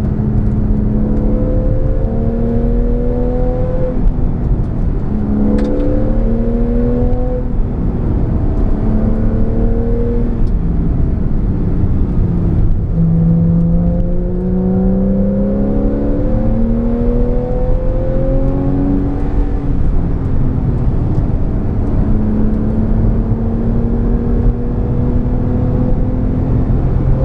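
Porsche 991 Carrera S's 3.8-litre flat-six under hard acceleration on track. Its note climbs through the revs and breaks off briefly at each upshift, several times, with a long, slowly rising pull near the end. Heavy wind and road rumble run underneath.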